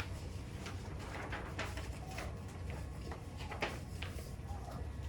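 Paper instruction sheets being handled, with faint scattered rustles and light taps over a steady low room hum.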